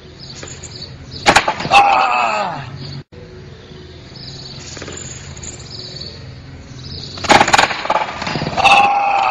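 A man falling from a wall onto a metal bench and the pavement: a quick clatter of hard impacts, then his long yell. The crash and yell come twice, about six seconds apart.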